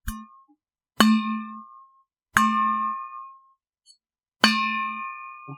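Stainless steel bottle flicked four times. Each flick is a sharp metallic ping that rings on for half a second to a second, with a low hum under higher ringing tones. The first ping is cut short.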